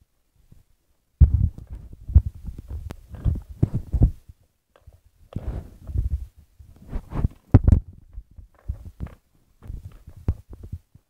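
Irregular low thumps and rubbing in several bursts, loudest about a second in and near the eight-second mark: handling noise from a phone being held and moved around, fingers and grip rubbing against its microphone.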